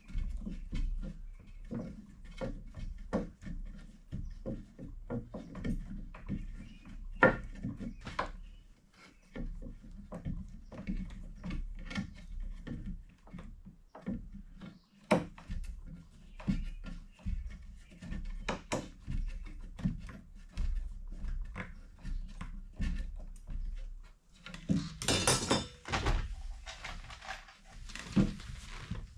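Irregular knocks, clunks and clicks of hands handling wood and hardware inside a wooden plank box, with a brief harsher rasping burst near the end.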